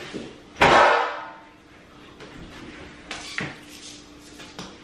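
Kitchen clatter: one loud bang about half a second in that rings on briefly, then a few lighter knocks and taps of utensils and objects set down on the counter.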